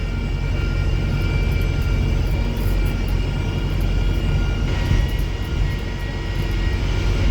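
Wrightbus StreetDeck HEV hybrid double-decker bus under way: a steady low drivetrain drone with several steady high whines over it, the whine pattern shifting about five seconds in.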